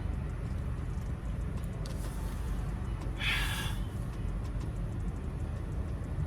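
Low, steady rumble of a car heard from inside the cabin, with a brief breathy hiss about three seconds in.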